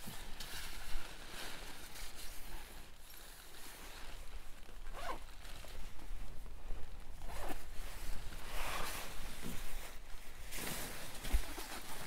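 A zipper pulled in several separate strokes amid rustling of fabric, most likely the tent's door zipper.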